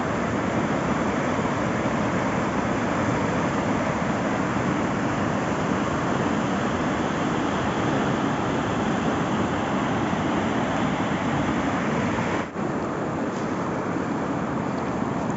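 River water rushing steadily, a continuous even roar; it dips briefly about twelve seconds in and then carries on a little quieter.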